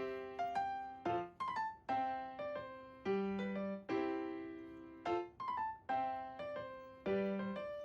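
Background music: a light piano melody of struck notes, each dying away, repeating a short phrase about every four seconds.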